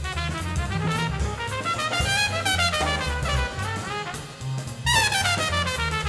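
Instrumental jazz with a brass section, trumpets and trombones playing sliding phrases over a walking bass line. The brass comes in louder about five seconds in with a falling phrase.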